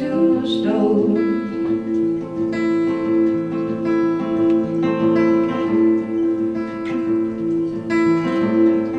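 Acoustic guitar played live, strummed chords with one repeated note pulsing steadily underneath.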